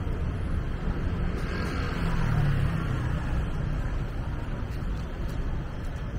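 City street traffic: a steady rumble of passing vehicles, with one vehicle passing close about two seconds in.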